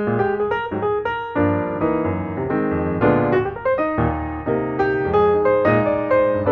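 Background piano music: a steady flow of notes and chords.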